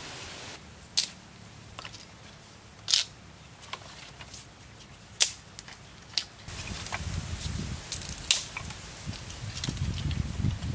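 Dry sticks knocking together as firewood is stacked, a few sharp clacks a second or two apart. About two-thirds of the way through, a burning wood fire comes in, with a low rush of flames and small crackles.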